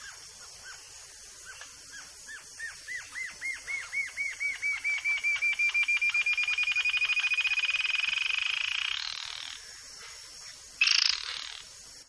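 Yellow-billed jacamar singing: spaced, slurred high notes that rise in pitch and speed up into a fast, steady trill lasting several seconds, which then fades. A short, louder burst of sound comes near the end.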